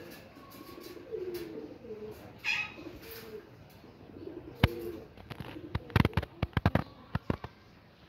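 Alexandrine parakeet making soft, low murmuring calls, with a brief higher call about two and a half seconds in. In the second half comes a run of sharp clicks as it chews with its beak.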